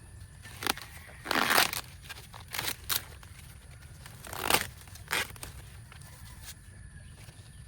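Purple corn husks and leaves being torn and crumpled by hand: a handful of separate tearing rustles, the longest about a second and a half in, with the last about five seconds in.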